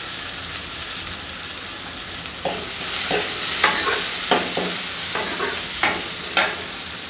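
Chopped onions sizzling in hot oil in a kadai while a steel ladle stirs them, clinking and scraping against the pan. The sizzle grows louder and the clinks come thick from about two and a half seconds in.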